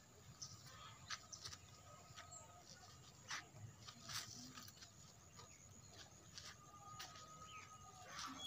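Faint, irregular crackles and snaps of dry twigs and dead leaves as calves browse and shift about in a brush pile.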